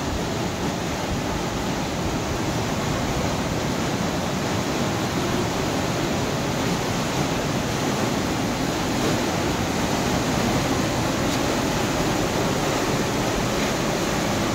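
A waterfall in a narrow rock gorge, rushing steadily into a pool. It is an even water noise that grows slightly louder toward the end.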